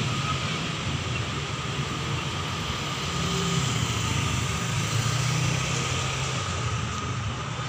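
Road traffic of cars and motorcycles running past in a steady stream, an even drone of engines and tyres.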